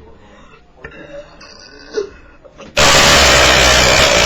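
A very loud, long belch close to the microphone, starting suddenly about three seconds in and still going at the end.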